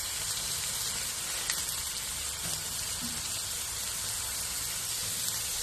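Ribeye steaks sizzling steadily on a hot Blackstone flat-top griddle, an even frying hiss, with a faint click about one and a half seconds in.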